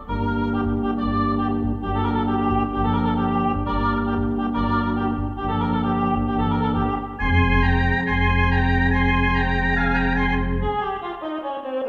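Theatre organ playing a silent-film accompaniment: held chords over a strong pedal bass, with a louder, fuller chord coming in about seven seconds in. Near the end the bass drops out and the melody slides downward.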